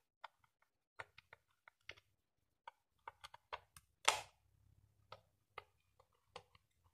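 Small screwdriver turning out the screws of a digital multimeter's plastic back cover: a run of faint, irregular ticks and clicks, with one louder click about four seconds in.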